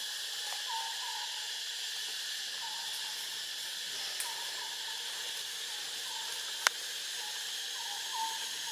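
Steady high hiss of insects in the trees, with short calls repeating roughly once a second, often in pairs. One sharp click comes about two-thirds of the way through.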